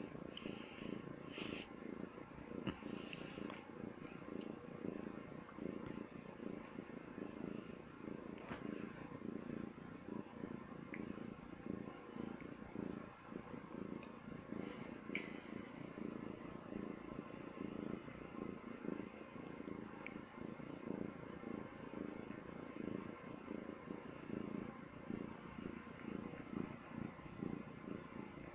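Domestic cat purring continuously as a fast, even rumbling pulse while it is being massaged.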